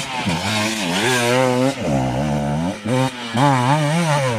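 Enduro motorcycle engine revving up and down over and over as the bike climbs a rough dirt trail and rides past close by.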